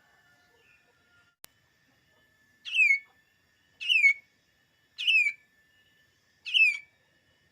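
Cucak ijo mini (cucak daun), a small leafbird, calling four loud whistled notes about a second apart, each sliding down in pitch.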